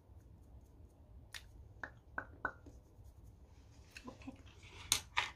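Hands handling gift items: a few faint, separate clicks and taps, then a rustling of handled packaging from about four seconds in, with a sharper click near the end.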